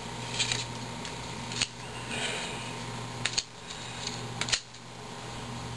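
2011 Topps baseball cards being picked up off a table and flipped through by hand: light rustling and sliding of card stock, with three sharp clicks as cards snap against each other.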